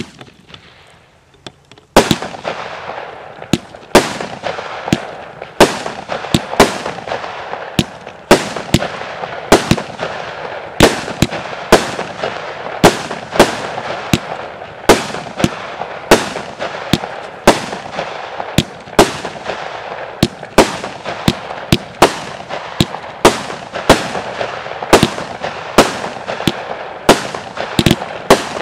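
A 200 g, 25-shot consumer firework cake firing shot after shot. Sharp bangs come about once or twice a second, starting about two seconds in, with a continuous crackle between them.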